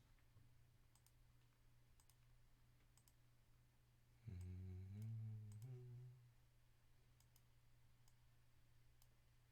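Near silence: faint, scattered clicks over a low steady hum, with a brief low hum that steps up in pitch for about two seconds, starting about four seconds in.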